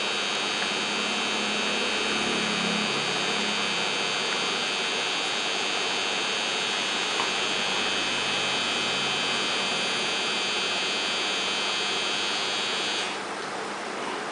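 Aquarium filter running: a steady hum and high-pitched whine over a hiss of moving water. The whine cuts off suddenly about 13 seconds in, leaving the water hiss.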